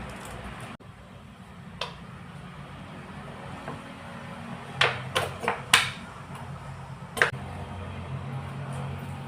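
Light knocks and clinks of kitchen handling over a low steady hum: one knock about two seconds in, a quick run of four a little past halfway, and one more near the end.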